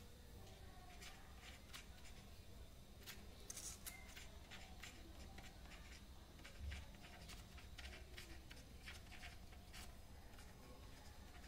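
A pen writing on a sheet of paper: a faint, irregular string of short strokes as words are written out.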